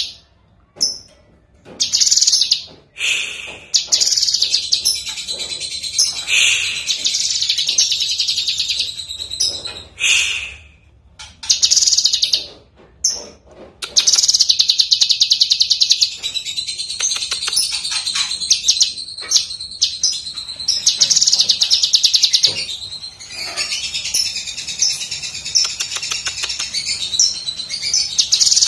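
Cucak kinoi leafbird singing loudly in fast, chattering bursts of rapidly repeated high notes. The bursts are split by short pauses at first, then run into near-continuous song from about halfway.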